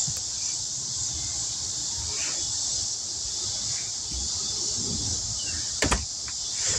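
Steady high-pitched insect chorus, a continuous even buzzing hiss, with one sharp knock about six seconds in.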